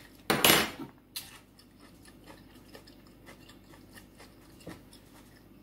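A plate of food being picked up and handled: a short, loud scraping rustle about half a second in, then a lighter knock, followed by faint chewing sounds and another small knock near the end.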